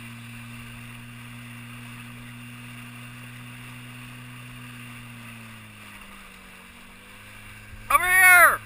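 Motorboat engine running steadily at low speed with a low hum; its pitch drops a little about five and a half seconds in as it throttles back. Near the end, a short loud cry rises and falls in pitch.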